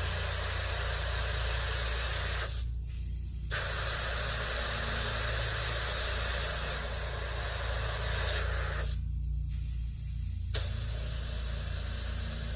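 Air hissing out of a Kawasaki Mule 2510 UTV tyre through the release button on a tyre pressure gauge, letting the pressure down from about 28 psi. It comes in three long spells, with short stops about three seconds and nine seconds in. A steady low hum runs underneath.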